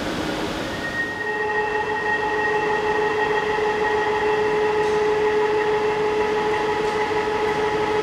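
End mill flank-milling an aluminium impeller blade on a five-axis machining centre: a steady, high cutting whine sets in about a second in and holds an even pitch over the hiss of coolant spray.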